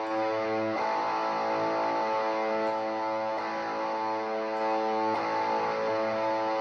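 Single-coil electric guitar playing long, sustained lead notes through a JHS Whitey Tighty mini compressor and stacked overdrive pedals with a solo volume boost; new notes are picked about a second in and again about five seconds in.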